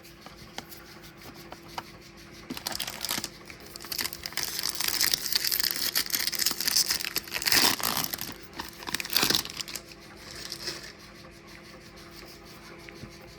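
Foil trading-card pack wrapper crinkling and being torn open, an irregular run of crackly rustles that is loudest about halfway through.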